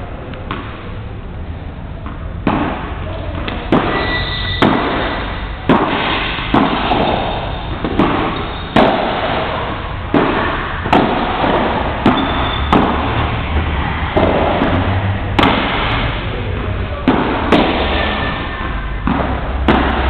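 Padel ball being hit back and forth with padel rackets and bouncing off the court, sharp hits about once a second starting a couple of seconds in.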